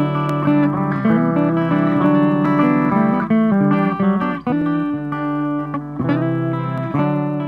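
Background music with a plucked guitar playing a run of changing notes.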